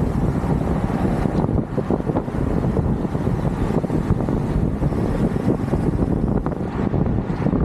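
Wind buffeting the microphone during a bicycle ride: a steady, low, fluttering rumble.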